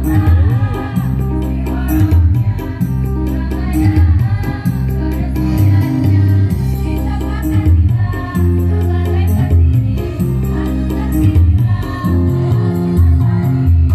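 Girls' choir singing over a musical backing with steady bass notes and a fast, regular rattling percussion beat.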